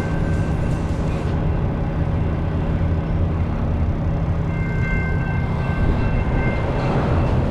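Double-stack container freight train rolling past at a level crossing: a steady rumble of steel wheels on the rails, with thin high tones that fade in and out twice.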